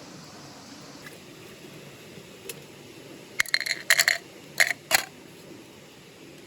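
Metal camp cookware clinking: a quick run of ringing clanks about three and a half seconds in, then two more just before five seconds, over a steady hiss.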